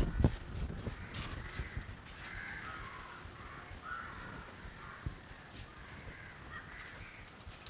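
Crows cawing over and over in the background, with a few low thumps right at the start.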